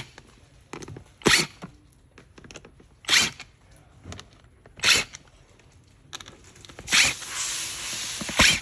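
Screws being backed out of an office chair's seat pan with a Phillips bit: a run of short, sharp mechanical sounds about every two seconds, with a steady hiss joining in near the end.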